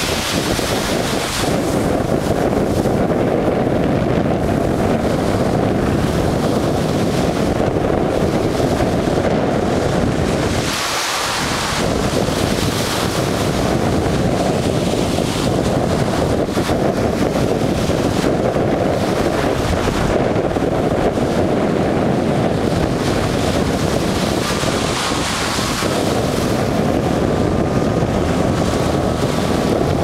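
Small ocean waves breaking and washing up a sandy beach, largely covered by steady, loud wind buffeting on the microphone.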